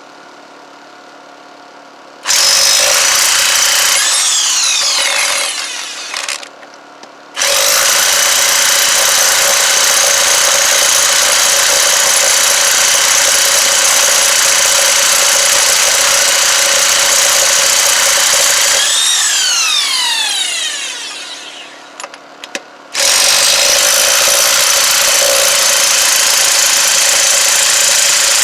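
Bauer 1/2-inch corded electric impact wrench running on tight lug nuts of a van wheel, in three long runs starting about two seconds in; after the first two, the motor's whine falls away as it spins down before the trigger is pulled again.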